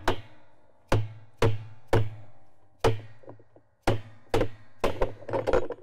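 A mallet tapping a steel spanner wrench seated on a washer's tub spanner nut, turning it counterclockwise to break the nut free. There are about ten sharp taps in uneven groups, each leaving a short metallic ring.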